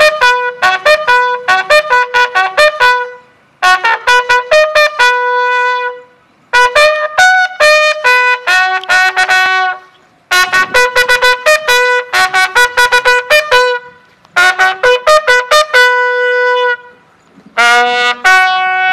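A bugle sounding a military call in about six phrases of quick notes, separated by short pauses, with a long held note beginning near the end.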